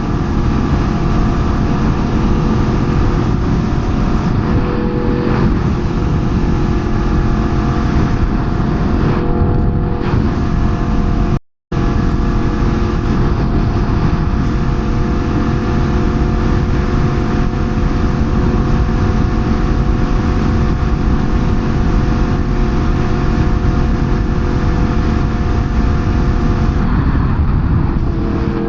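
Sport motorcycle engine running at a steady speed while riding, with heavy wind rumble on the microphone. The sound cuts out completely for a moment about eleven seconds in, and the engine note shifts slightly near the end.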